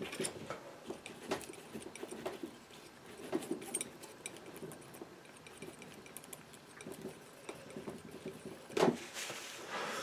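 Palette knife working oil paint: faint, scattered light scrapes and clicks of the blade mixing paint on a wooden palette and spreading it on a board, with a slightly louder short sound near the end.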